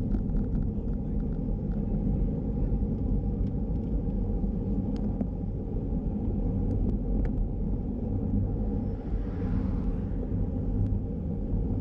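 Wind buffeting the microphone of a camera mounted on a moving road bike, with steady tyre-on-tarmac rumble, and a few light ticks from the bike.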